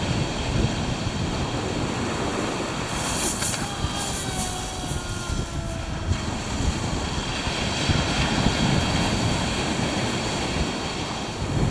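Surf washing on a shingle beach, with wind rumbling on the microphone; a brief surge of hiss about three seconds in.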